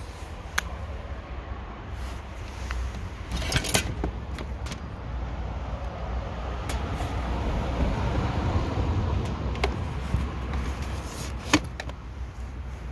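A steady low rumble with a few sharp clicks and knocks, the loudest near the end, as a boxed SilverCrest kitchen appliance's plastic latches and casing are handled.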